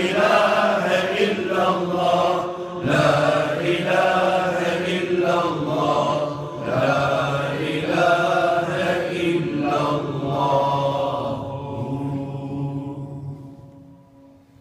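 A man's solo Islamic chant, sung into a microphone in long, ornamented held phrases over a low sustained note, fading away about twelve to fourteen seconds in.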